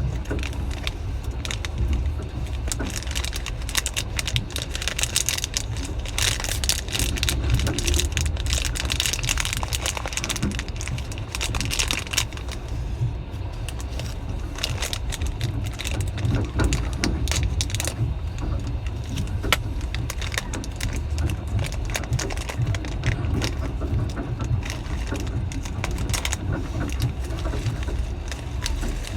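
Passenger train in motion: a steady low rumble with constant irregular rattling and clicking.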